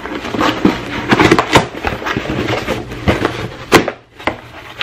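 Cardboard shipping box being pulled open by hand: the flaps scrape and rustle, with two sharp cracks, about a second and a half in and near four seconds.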